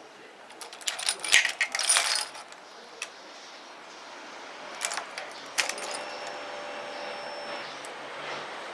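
Small metal objects clinking and jangling in a quick cluster about a second in, then a few single metallic clicks.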